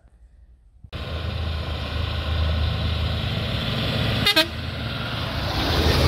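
Forest-service fire truck driving on a dirt road, its engine running steadily. The sound starts abruptly about a second in, and a short horn toot comes about four seconds in.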